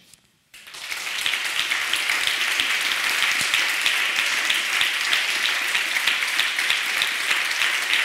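Audience applauding: it breaks out about half a second in, swells within a second to dense, steady clapping and holds there.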